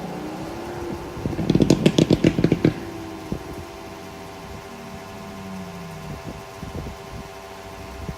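Pagani Huayra BC's twin-turbo V12 blipped: the revs rise, then a rapid string of about a dozen loud exhaust crackles and pops over a second and a half as the throttle closes. The engine then settles to a steady idle with a few scattered pops.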